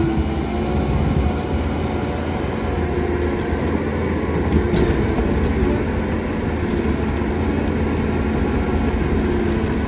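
Skid steer's engine running under load as its Coneteks 2.13M hydraulic forestry rotor head grinds stumps and roots into the soil. There is a brief louder knock about halfway through.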